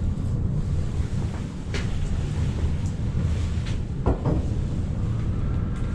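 Strong wind buffeting a small mountain refuge hut: a steady low rumble. A few light knocks and clicks come from someone handling things inside.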